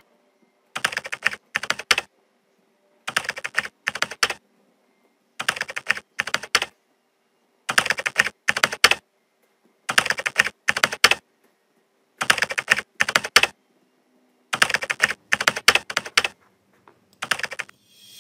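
Computer-keyboard typing sound effect: rapid key clicks in bursts of about a second, one burst every two seconds or so, with dead silence between, while title text types itself out letter by letter.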